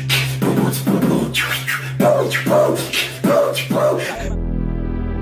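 Intro music: a hip-hop-style beat of sharp percussive hits about twice a second over a low held tone, which cuts off at about four seconds into a steady synthesizer-keyboard music bed.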